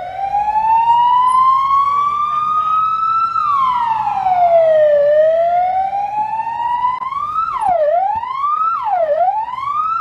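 Hungarian police car siren sounding: a loud slow wail that rises, falls and rises again, then switches about three-quarters of the way through to a quicker rise-and-fall, a little over a second per cycle.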